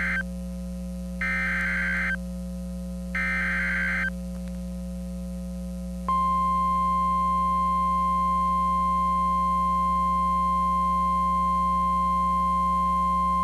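Emergency Alert System SAME header: the end of one burst of warbling digital data and two more bursts of about a second each. After a short gap, the steady single-pitch NOAA Weather Radio warning alarm tone starts about six seconds in, announcing a new warning. A low electrical hum runs underneath throughout.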